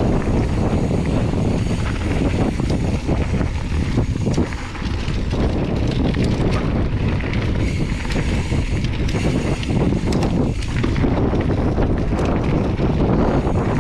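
Wind buffeting a mountain biker's action-camera microphone during a descent on a dirt trail, mixed with the rumble of tyres on dirt and the rattle of the bike, plus scattered small knocks.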